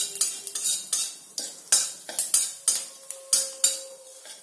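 Metal spatula scraping and clinking against a metal kadai, about two or three strokes a second, as a dried red chilli and panch phoron are stirred in hot oil for tempering. The strokes die away near the end.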